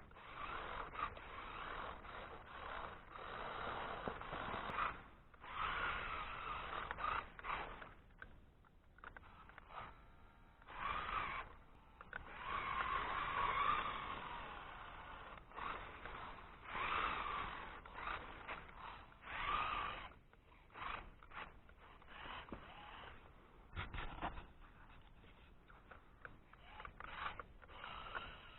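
Electric motor and gear drive of an RC 4x4 rock crawler whining in repeated bursts of a second or two, stopping and starting as it is driven.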